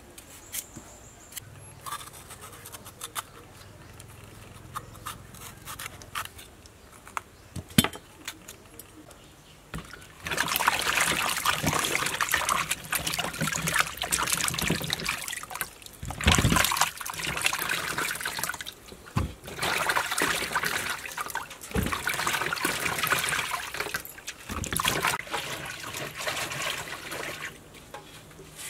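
Food being washed by hand in water, splashing and sloshing in stretches. It starts about ten seconds in, after a quieter stretch with a few faint handling clicks.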